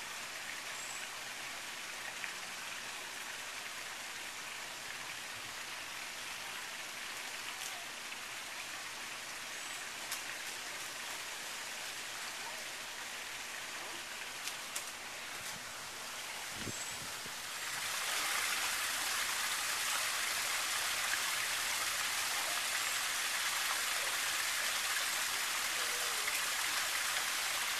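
Steady rushing hiss like running or splashing water, growing louder and brighter about eighteen seconds in.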